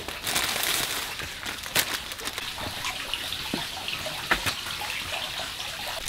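Water running and splashing, with a few sharp knocks.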